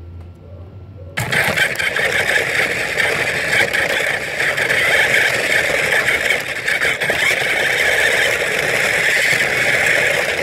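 Battery-powered ride-on toy car driving: the electric drive and the plastic wheels rolling on rough pavement make a loud, steady grinding whir. It starts suddenly about a second in.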